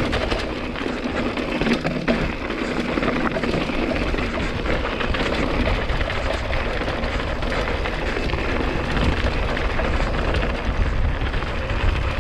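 Mountain bike rolling over a rough, rocky dirt road: a constant clatter of tyres on rock and gravel and the bike rattling, with wind rumbling on the microphone.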